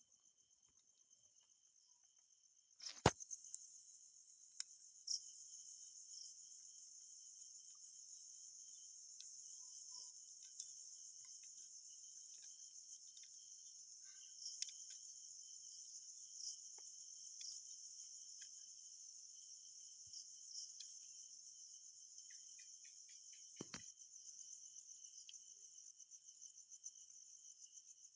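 Faint, steady high-pitched trilling of night insects, which comes in after a sharp click about three seconds in. A single dull knock sounds late on.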